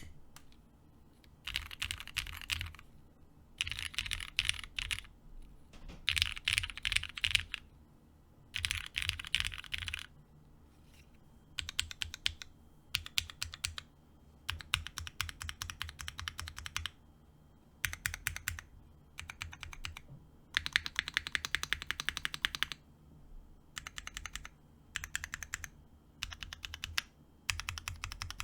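Typing on a mechanical keyboard with lubed Cherry MX Black Hyperglide linear switches and GMK keycaps in a Kalam Unikorn HK case: bursts of rapid keystrokes separated by short pauses. About two-thirds through it turns to repeated ASDF runs, and near the end to single presses of modifier keys and stabilized keys such as the spacebar.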